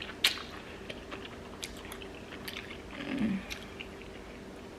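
Close-miked mouth sounds of someone chewing enoki mushrooms, with scattered wet clicks and smacks; the loudest click comes just after the start. About three seconds in there is a short hummed 'mm' that falls in pitch.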